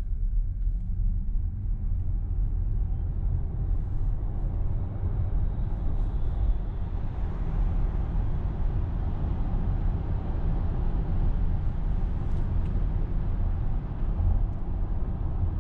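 Interior noise of a VW ID.4 electric SUV accelerating at full pedal from walking pace to highway speed on 19-inch winter tyres: a steady, deep rumble of tyre and road noise, with no engine note.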